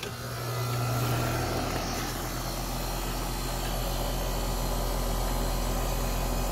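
Newly installed central air-conditioning condenser with a Copeland compressor starting up for the first time. It kicks on with a strong hum that eases after about a second and a half, then runs steadily.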